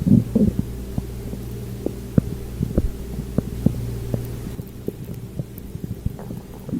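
Stomach and bowel gurgling: a loud gurgle in the first half-second, then scattered short pops and squelches over a steady low hum.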